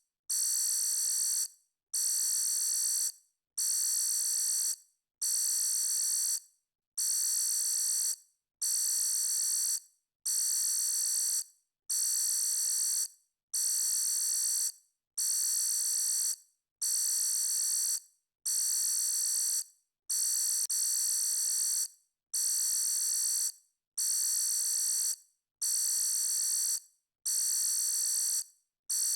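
Electronic alarm beeping: a high-pitched tone held for about a second and a quarter, then cut off, repeating with short gaps about every 1.7 seconds.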